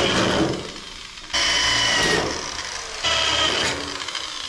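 Corded electric drill run in three short bursts, its attachment grinding against rusty sheet metal, with the motor's whine falling away after each burst as the trigger is released.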